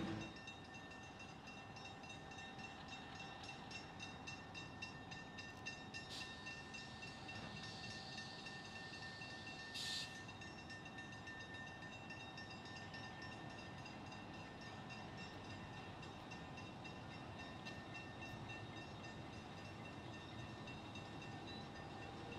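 Faint, steady sound of a distant train: a low rumble with a constant hum of several steady tones. There is a brief click about ten seconds in.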